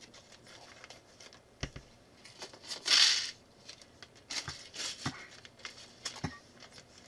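Clear plastic parts bags rustling softly as they are handled. About three seconds in, small plastic building bricks are tipped out of a bag into a plastic bowl with a brief rattle. A few sharp taps of parts and bowls on the tabletop come before and after.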